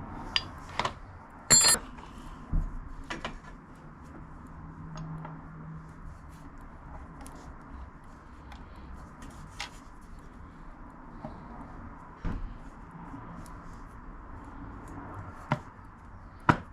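Bolts and hand tools clinking and tapping against the metal transmission side cover as the bolts are started and snugged: scattered sharp clicks and knocks, with one ringing metallic clink about a second and a half in, over a steady faint hum.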